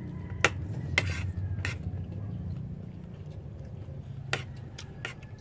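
Spoons and forks clinking against metal plates during a meal: a handful of sharp clinks, over a steady low hum.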